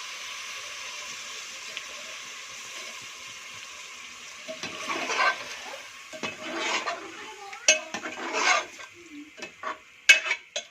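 Chicken karahi sizzling in the pan, the hiss fading over the first few seconds, then a metal spoon stirring and scraping around the karahi in irregular strokes, with a few sharp clanks against the pan near the end.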